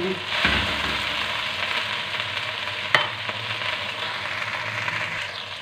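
Sliced okra frying in mustard oil in a metal pot: a steady sizzle, stirred with a steel spoon in the first second or so, with one sharp clink about three seconds in. The okra is still being fried until its slime cooks out.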